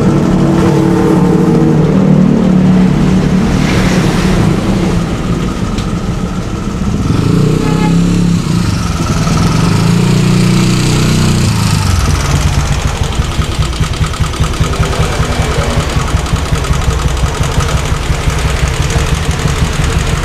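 Motorcycle engine revving with shifting pitch, then running more steadily with a rapid, regular pulsing beat through the second half.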